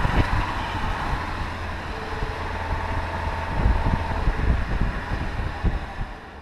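Audi A4 B5 Avant's 1.8-litre four-cylinder engine running on its stock exhaust at a steady pace, with a steady low drone and wind buffeting the microphone. The sound fades out near the end.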